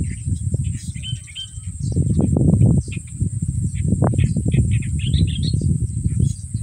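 Birds chirping in short calls over a steady high insect drone, with a louder, uneven low rumble underneath that swells and fades.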